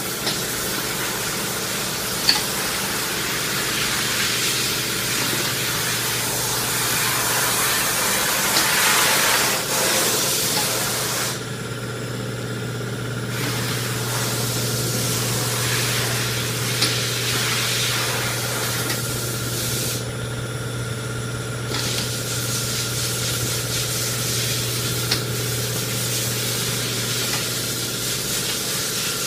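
An M&R Gauntlet eight-colour automatic screen-printing press running. It makes a steady hiss of compressed air over a low hum, with a few sharp clacks. The hiss breaks off twice, for about two seconds each time, in the middle stretch.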